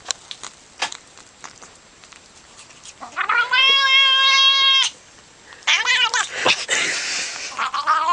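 Domestic cat yowling as it is petted: a long, steady, drawn-out yowl about three seconds in, then a wavering, rougher call a second later, and more warbling cries starting near the end.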